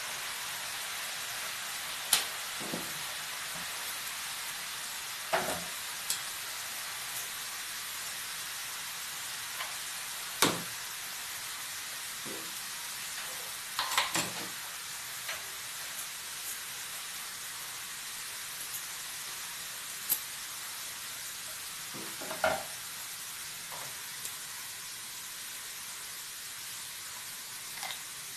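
Gram-flour sev deep-frying in hot oil in a shallow frying pan: a steady sizzle, with a few sharp clicks now and then.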